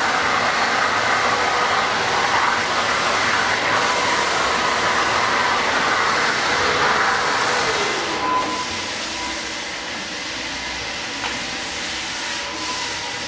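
Construction vacuum cleaner running, its floor nozzle sucking crumbled old parquet glue and grit off a bare concrete screed. About eight seconds in, a tone falls in pitch and the noise drops, and the vacuum runs on more quietly.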